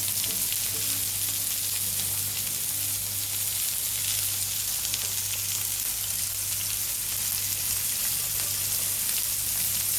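A thick bone-in ribeye (tomahawk steak) sizzling steadily in oil on a hot cast-iron griddle as its first side sears.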